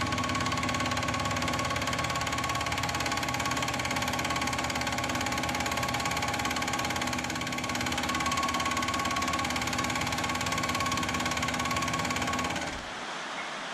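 Mill drill running a fly cutter that takes a facing cut across a raw metal casting: a steady machining whine with a ringing high tone. It drops away sharply near the end.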